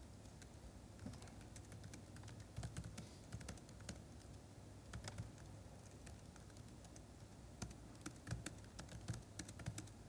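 Faint keystrokes on a computer keyboard, in short runs with pauses between them, as shell commands are typed into a terminal.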